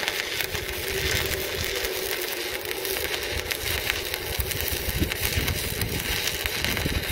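Manual stick (MMA) welding arc burning a 2.5 mm rutile electrode on 4 mm steel tube, fed by an inverter welder: a steady sizzle with fine irregular crackling that holds without a break.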